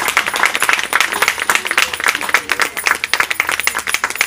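A group of people applauding: dense, steady hand clapping.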